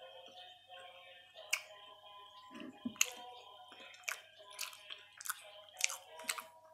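Close-up chewing of a toasted cheese sandwich: a run of sharp crunches as the crisp bread is bitten and chewed, with background music playing.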